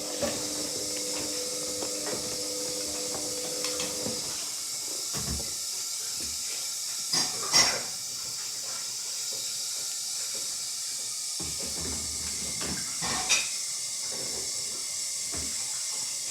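Hoover 8 kg washing machine in its main wash: a steady hiss of water with a motor hum that stops about four seconds in, and a few knocks later on.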